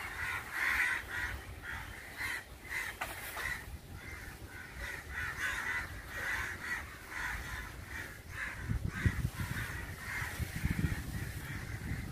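Crows cawing over and over, short harsh calls about two a second from several birds, agitated around a sick young crow. Low rumbling bumps join in during the last few seconds.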